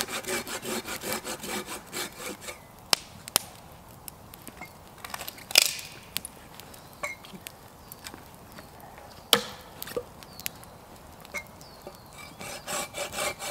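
Hand saw cutting through wood with quick back-and-forth strokes, which stop about two and a half seconds in and start again near the end. In between come a few sharp snaps and cracks of wood, the loudest about five and a half seconds in.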